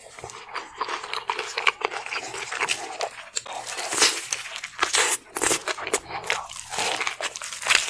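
Crunchy bites into a Hot Cheetos-coated lobster tail, the crispy coating crackling in dense, sharp crunches as she chews.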